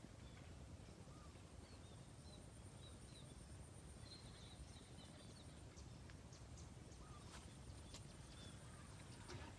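Near silence: faint outdoor ambience with a low rumble, a thin steady high whine, and scattered short bird chirps.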